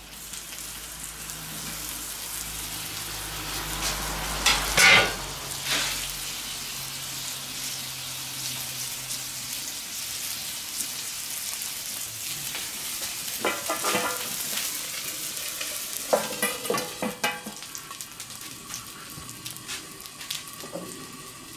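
Potato pieces sizzling on a hot steel fire-plate griddle, with a steady frying hiss. Several knocks as food and stainless-steel cloches are set down on the plate, the loudest about five seconds in and a cluster later on.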